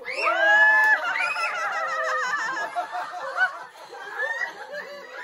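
Children squealing and laughing: one long, high squeal in the first second, then bursts of giggling laughter.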